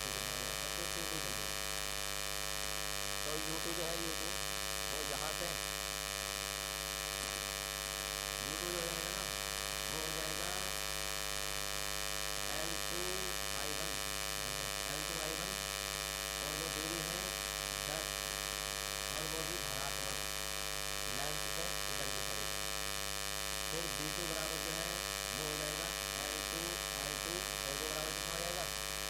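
Steady electrical hum and buzz with a dense ladder of overtones reaching high up: electrical interference noise on the recording, which the uploader puts down to the inverter running the lights.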